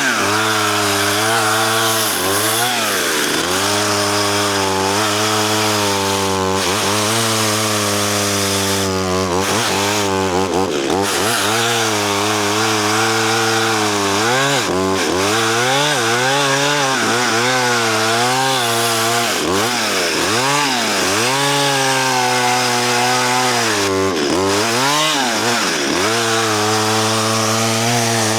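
Chainsaw cutting through a fallen dead spruce log, its engine pitch dropping and climbing back again and again as the chain bites and bogs in the wood. The chain is dull, so the saw is being revved hard to keep it cutting.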